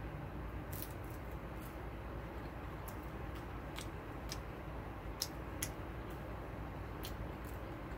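A person chewing a breaded chicken nugget: scattered faint clicks from the mouth and the coating over a steady low hiss.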